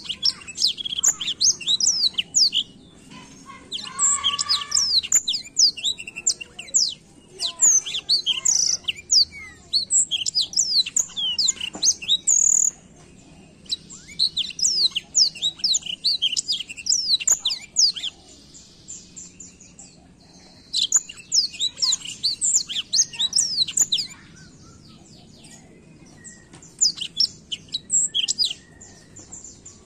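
Blackthroat (black-throated canary) singing a rolling song: several-second bursts of fast, high chirps and trills, about six of them, separated by short pauses.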